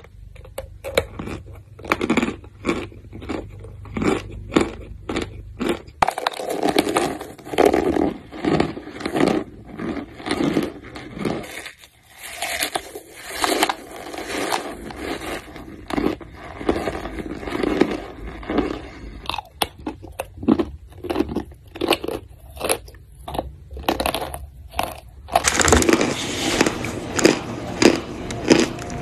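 Close-miked mouth crunching and chewing of lumps of pressed corn starch: repeated sharp, crumbly crunches, several a second. Near the end the crunching turns denser and continuous.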